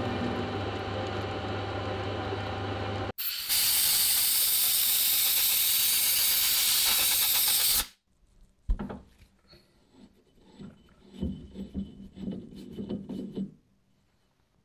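A metal lathe runs steadily with a hum of several even tones and cuts off suddenly about three seconds in. A loud, steady hiss follows for about four seconds and stops abruptly. Then hands grip, rub and lift the freshly knurled steel shaft out of the lathe, with a few light metal knocks.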